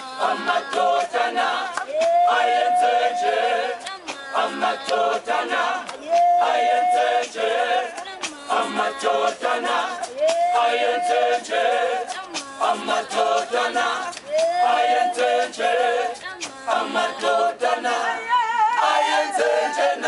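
Unaccompanied choir of young men and boys singing in harmony, a phrase with a long held note recurring about every four seconds.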